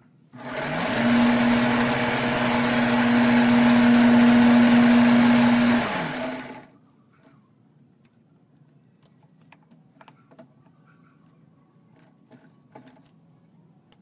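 Electric motor of a ceiling-fan stator coil winding machine spinning up with a rising hum, running steadily for about six seconds, then winding down with a falling pitch. A few light clicks follow.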